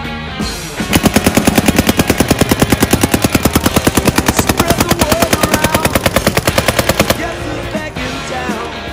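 Paintball marker fired in a rapid stream, about ten shots a second. The string starts about a second in and stops about seven seconds in, over rock music with guitar.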